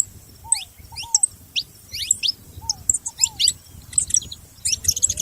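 Saffron finches chirping and calling, many short, sharp notes overlapping in quick succession, with a lower arched note now and then.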